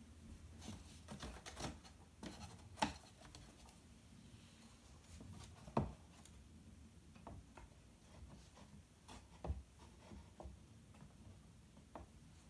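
Faint handling noises as hands work at cross-stitch fabric on a wooden scroll frame: scattered light taps, clicks and rustles, with sharper knocks about three, six and nine seconds in.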